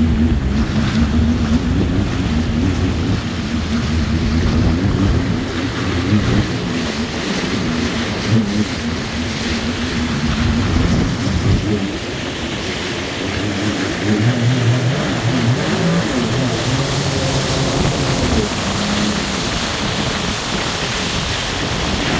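Jet ski engine running under way, its note wavering up and down, over a steady rush of water and wind.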